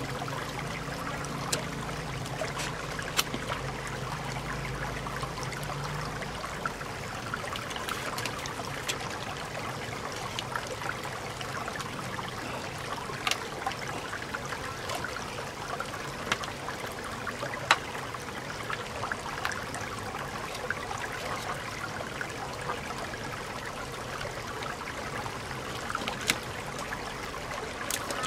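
Shallow stream water trickling and running steadily over rocks, with a few sharp clicks scattered through it from a knife working open a large freshwater mussel shell. A low hum stops about six seconds in.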